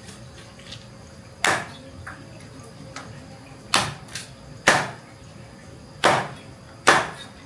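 Cleaver chopping through a rooster on a chopping board: five sharp, heavy strokes at uneven intervals.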